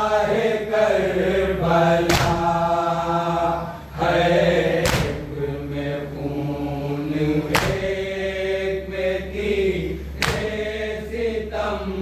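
A group of voices chanting a noha, a Shia lament for Abbas, together. Four sharp unison strikes fall evenly a little under three seconds apart, in time with the chant, like the matam chest-beating that accompanies an anjuman's noha.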